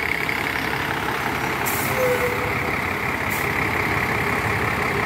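Intercity coach's diesel engine running as the bus pulls slowly past, with short hisses of released air from the brakes about two seconds in and again a little after three seconds.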